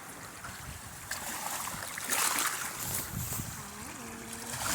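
Outdoor river ambience: a steady rush of river water and wind on the microphone, swelling louder about two seconds in, with a short pitched sound near the end.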